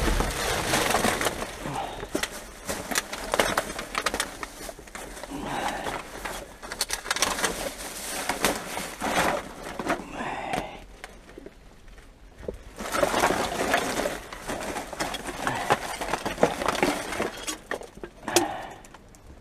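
Black plastic rubbish bags rustling and crinkling as gloved hands rummage through them, in irregular bursts, with scattered clicks and knocks of rubbish shifting inside.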